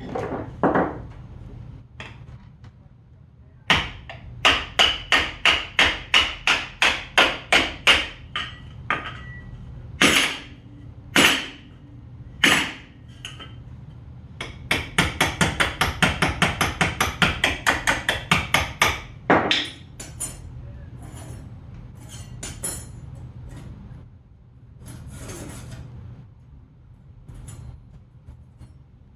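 Hammer blows on a warped metal part, beating out a hump to flatten it. About ten hard strikes come at roughly two a second, then three single blows, then a quick run of about twenty lighter taps, one last blow, and a few faint knocks near the end.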